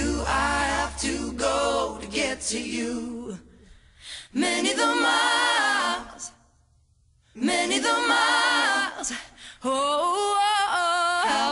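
Pop song with layered female vocal harmonies and almost no instrumental backing, breaking off into near silence for about a second midway.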